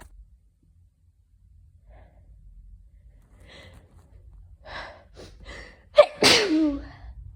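A person sneezing from hay fever: a few short catching breaths, then one loud sneeze about six seconds in, a sharp burst followed by a voiced tail that falls in pitch.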